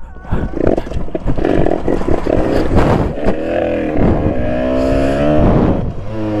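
Yamaha DT two-stroke dirt bike with a new engine accelerating hard at full throttle. The revs climb in each gear and drop at each quick upshift, with heavy wind rush on the microphone in the first few seconds.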